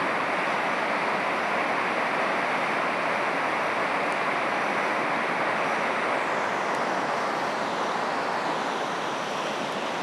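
Steady, even rushing noise with no speech and no distinct events, easing slightly near the end.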